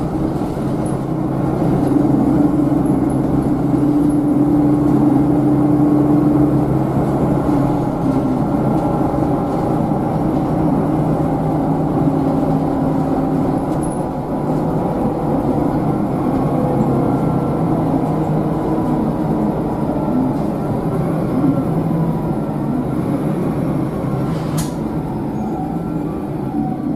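Volvo B7RLE bus's six-cylinder diesel engine and road noise, heard from inside the passenger cabin while the bus is under way, the engine's pitch rising and falling with its speed. A single sharp click near the end.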